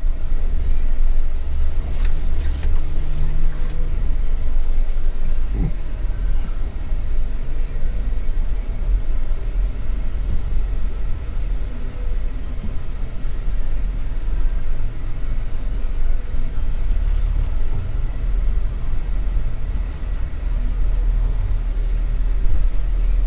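A 4x4 creeping up a rough dirt trail in four-wheel low, heard from inside the cab: a steady low rumble of engine and drivetrain at low speed, with a few sharp knocks from the rocky ground in the first several seconds.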